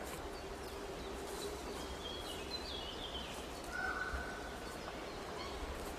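Woodland ambience: a steady background hiss with a few faint bird chirps about two to three seconds in and a brief whistled note about four seconds in.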